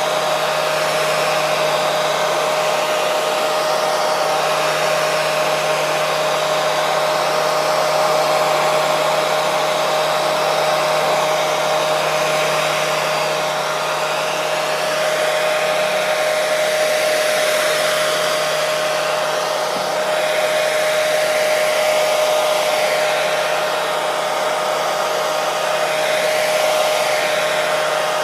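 Hair dryer running steadily: an unbroken rushing whir of blown air with a steady motor hum tone under it.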